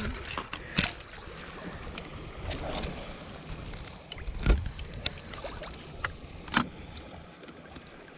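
Water lapping against the hull of a plastic sit-on-top kayak at sea, under a steady wash of wind and water, with a few sharp knocks, the loudest about four and a half seconds in.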